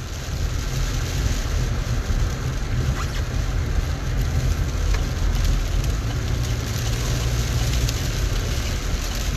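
Steady low rumble and hiss of a car driving on a wet road, heard inside the cabin.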